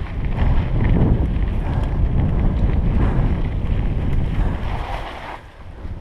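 Wind buffeting the microphone of a helmet-mounted camera as a downhill mountain bike rolls over gravel, with tyre crunch and the rattle of the bike. The noise drops away near the end as the bike comes to a stop.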